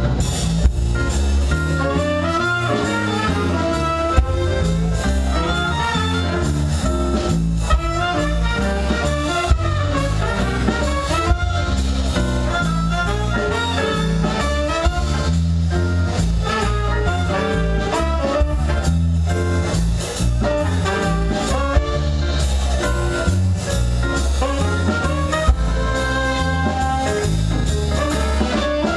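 A small jazz ensemble of violin, saxophone, electric guitar, bass and drum kit playing a tune live. A steady bass line and drums with cymbals run under a melodic line that moves in quick notes.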